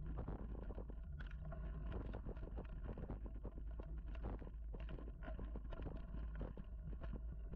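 Mountain bike rolling over a bumpy dirt singletrack: rapid, irregular rattling and clicking from the bike, over a steady low rumble of wind on the microphone.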